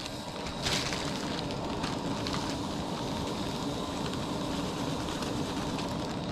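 A steady hiss, with a plastic bag rustling briefly about a second in and a few small handling ticks after.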